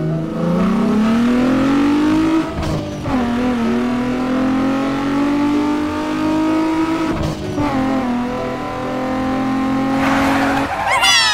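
Revving car-engine sound whose pitch rises and falls, with brief dips about two and a half and seven seconds in. Near the end comes a quick run of falling whistle-like tones.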